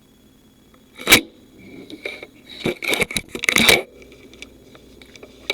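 A sharp knock about a second in, then a cluster of clicks and crackling knocks around the middle.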